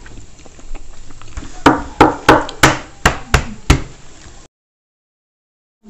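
Boiled eggs knocked against a hard table surface to crack their shells: about seven sharp knocks, about three a second, starting about a second and a half in.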